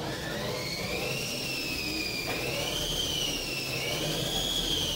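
Intro sound effect under an animated title: a steady rushing whir with a high whine on top that wavers slowly and creeps up in pitch.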